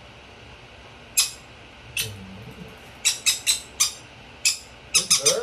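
Conure giving short, sharp high-pitched squeaks while being hand-fed from a syringe, about a dozen in irregular runs, with several in quick succession near the end.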